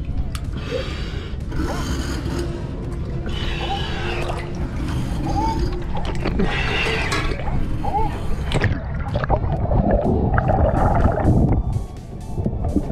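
Water gurgling and bubbling around a hookah diver breathing through a regulator, in surges every second or two, turning into a denser churning near the end.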